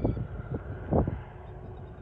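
Wind buffeting the microphone in three short gusts, over a low steady rumble from a distant, approaching TasRail TR-class diesel locomotive.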